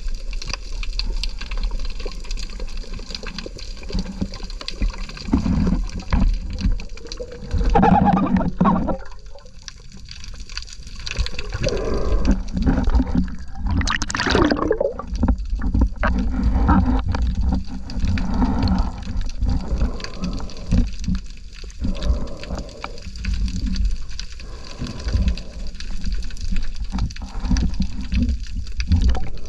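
Sea water sloshing and gurgling around the camera, with a low rumble and irregular rushes of water, and one brief louder rush about halfway through.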